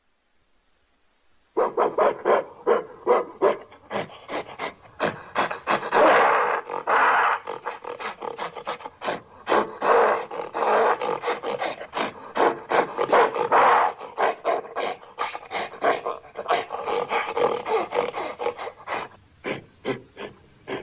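Gorilla vocalising in a long run of rapid, rasping grunts and roar-like calls, starting about a second and a half in, with several louder, longer outbursts along the way.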